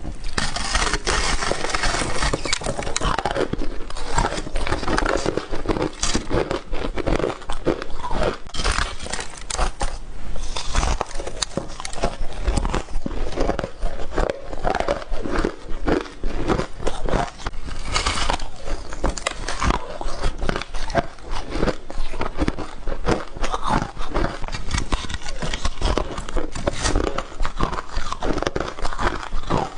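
Ice being bitten and crunched close to the microphone: a dense, unbroken run of sharp cracks and crunches.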